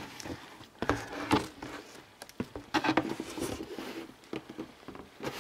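Scattered light knocks, taps and rustles of things being handled and moved about on a table top, as the table is cleared.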